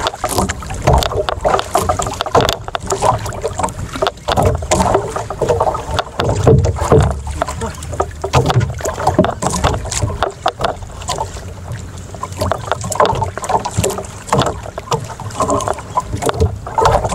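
Small outrigger boat rocking on choppy sea: water slapping against the hull, wind on the microphone, and irregular knocks from the boat and gear while a fish is reeled up.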